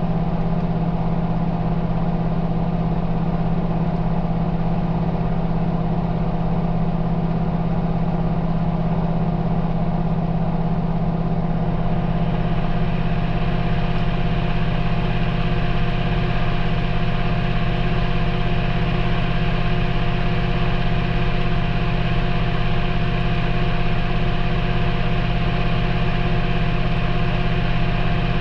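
Maytag front-loading washing machine running on its delicate cycle, heard from inside the drum: a steady low motor hum with a few steady tones above it. About twelve seconds in, a higher hiss grows louder.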